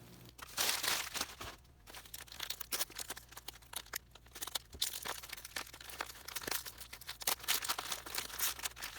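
Packing material crinkling, rustling and tearing in bursts as a model train car is unwrapped by hand.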